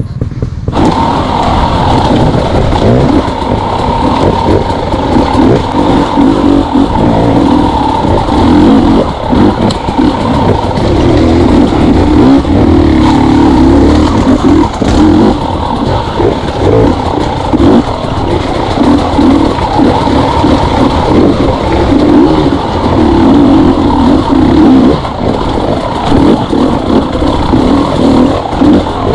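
KTM two-stroke enduro motorcycle engine revving up and down as the rider works the throttle over rough trail, the pitch and level rising and falling every second or so.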